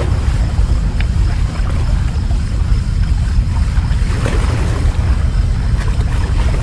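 Steady low rumble of wind buffeting the microphone by open sea water.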